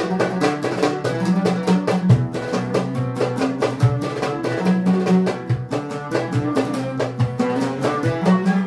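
Live Turkish folk music without singing: an oud and a bağlama plucked, a violin bowed, and a goblet drum beating a steady rhythm under them.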